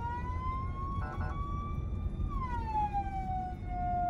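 Emergency vehicle's siren on a slow wail, heard from inside the cab over engine and road rumble: the tone rises slowly, holds, then falls back down. A short extra tone cuts in briefly about a second in.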